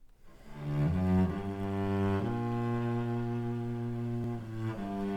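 Solo cello playing slow, long bowed notes low in its range, swelling in from silence over the first second. The notes change a few times early on, then one note is held for about two and a half seconds.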